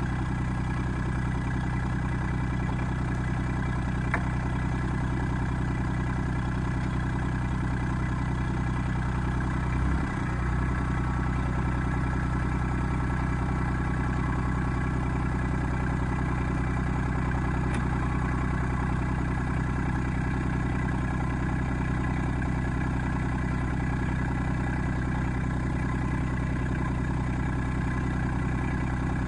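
RK25 compact tractor engine running steadily at idle, with a brief dip in its sound about ten seconds in.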